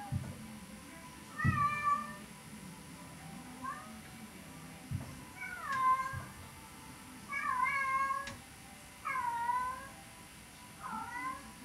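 Domestic cats meowing repeatedly, about six drawn-out calls a second or two apart, calling for their owner who is out of sight.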